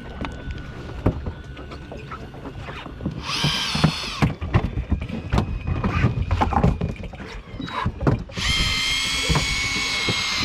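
Electric fishing reel motor whining as it winds in line: a short burst about three seconds in, then steadily from about eight seconds on. Irregular knocks and clatter of handling sit in between, over a low rumble.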